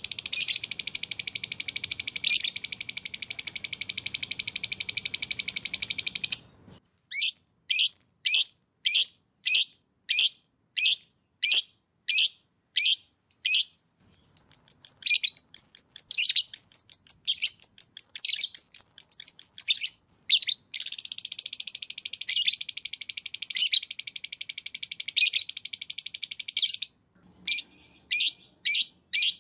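Cage bird singing: long unbroken rapid high trills alternate with runs of separate sharp sweeping notes at about two a second. There is a trill at the start, a run of notes from about seven seconds in, a trill again from about twenty-one seconds, and more separate notes near the end.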